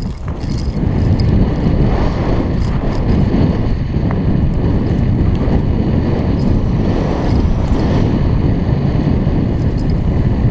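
A Kona Operator downhill mountain bike rolling fast down a dirt trail, heard through a helmet camera: steady wind rush on the microphone over the tyres on dirt, with scattered small clicks and rattles from the bike.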